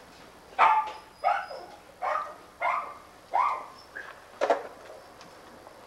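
A dog barking, six sharp barks at a fairly even pace over about four seconds.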